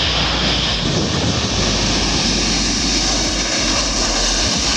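Boeing 737-800 jet engines running on the runway: a steady jet roar with a low rumble and a high hiss.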